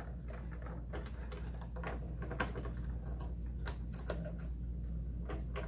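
Small Allen wrench turning the handle screw of a die-cutting machine as it is tightened: light, irregular clicks and small scrapes of metal on metal and plastic.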